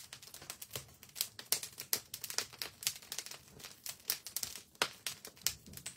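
Wood fire crackling in an open fireplace: irregular sharp pops and snaps, several a second.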